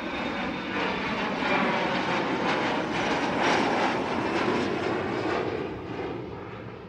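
An airplane flying past: its engine noise grows louder to a peak about three and a half seconds in, then slowly fades away.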